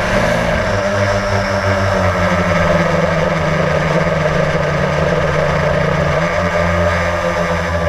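Blade quadcopter's electric motors and propellers in flight, a steady buzzing hum heard from the GoPro on board, shifting slightly in pitch now and then.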